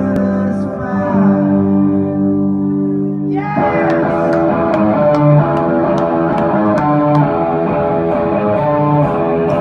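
Live rock band with electric guitars, loud. Held, ringing guitar chords give way about three and a half seconds in to a fuller passage with moving guitar lines and sharp ticks about two a second.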